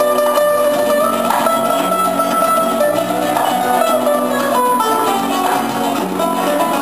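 Live band music led by guitars: acoustic guitars playing under a held, wavering melody line, with bass.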